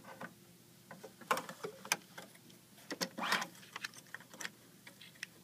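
Irregular clicks and clacks of a metal pocket clamp frame being slid onto and latched to an embroidery machine's cylindrical cap driver, with brief rustles of the shirt fabric being handled. A louder scrape-like clack comes about three seconds in.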